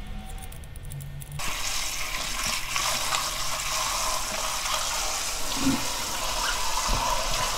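Kitchen tap running into a plastic bowl as peeled potatoes are rubbed and rinsed in the water; the steady rush of water starts about a second and a half in.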